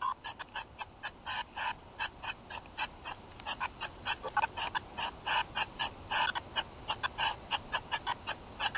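SV1 Spiritvox ghost-box app playing through a smartphone's speaker: a rapid, choppy stream of short sound fragments, about five a second, that investigators listen to for spirit voices.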